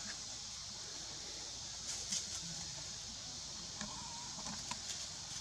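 Dry leaf litter crackling and rustling under monkeys' feet as they leap and run, in short crackles about two seconds in and again around four to five seconds in, over a steady high hiss.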